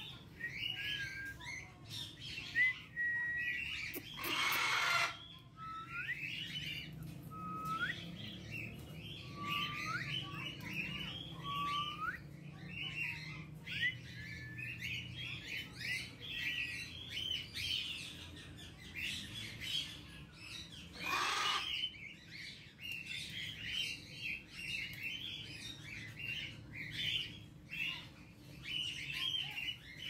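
Aviary birds chirping and twittering without pause, with a few short whistled notes that hook upward in the first half and two loud, harsh parrot squawks, about four seconds in and about twenty-one seconds in, over a steady low hum.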